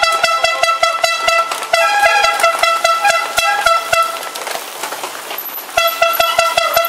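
Bells rung by hand at the race start, clanging in a steady rhythm of about three strikes a second, each strike ringing on; a second, higher-pitched bell joins in for a couple of seconds, and the ringing stops briefly a little past four seconds before starting again.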